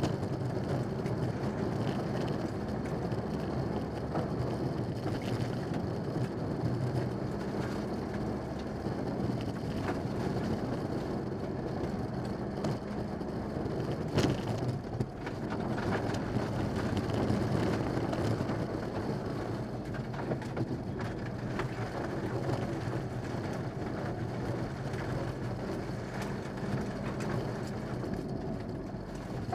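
In-cabin sound of a Mitsubishi Lancer Evolution VI rally car at speed on a gravel stage: its turbocharged four-cylinder engine running hard over the noise of tyres on gravel. There is a single sharp knock about halfway through.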